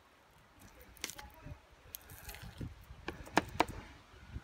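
Raw quail being pulled apart by hand on a plastic cutting board as its breastbone is worked free: soft wet squelches of the flesh and a few sharp little clicks of small bones.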